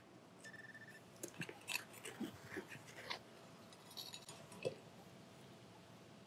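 Faint crunching and scraping of hand digging in dry grass and soil, a string of short scrapes and clicks, with a short high beep about half a second in.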